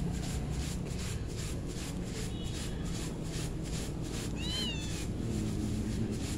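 Winged termites being shaken in a plastic colander: a dry, rhythmic rustle, about three shakes a second, as the loose wings are sifted out. A cat meows once, a short rising-and-falling call, a little past the middle.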